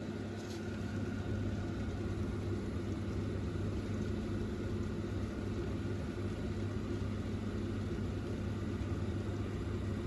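Steady low mechanical hum of a running motor or fan, even throughout with no change.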